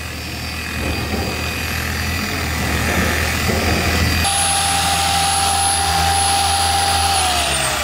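Electric machine polisher running on a headlight lens during compounding, a steady motor whine over a low hum. A higher whine joins about four seconds in, and near the end the pitch falls as the motor slows.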